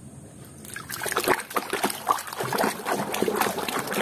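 Water splashing and sloshing in a plastic basin as a hand swishes and scrubs a muddy toy lobster under the surface, starting about a second in and going on irregularly.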